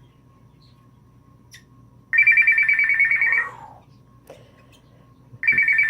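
Timneh African grey parrot mimicking a phone's messenger ringtone: two warbling, trilled rings a few seconds apart, each about a second long and trailing off lower at the end.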